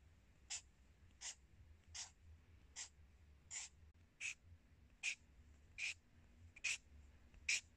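Felt-tip marker nib scratching across paper in short, quick hatching strokes, about ten of them at an even pace of roughly one every three-quarters of a second.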